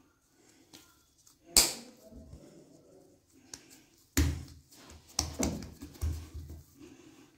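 Hands handling a stuffed dough ball and pressing it flat on a marble rolling board. There is a sharp knock about one and a half seconds in, then a run of soft thumps and pats from about four seconds in.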